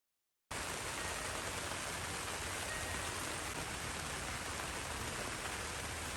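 Heavy rain falling steadily, an even hiss that starts abruptly out of silence about half a second in.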